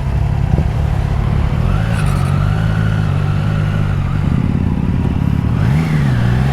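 Motorcycle engine running steadily at low revs, with a brief dip and rise in pitch near the end as the throttle is worked.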